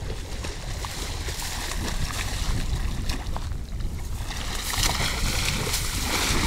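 Water splashing and churning at a river's edge, growing louder and busier about four seconds in, over a steady low rumble.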